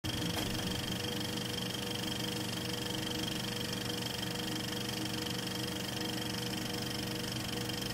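Steady mechanical whirring of a running film mechanism, with a steady hum underneath and no change in pace.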